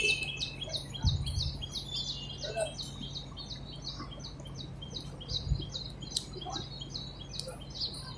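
Small birds chirping in a quick, steady series of short high notes, about three a second, over a faint steady low hum.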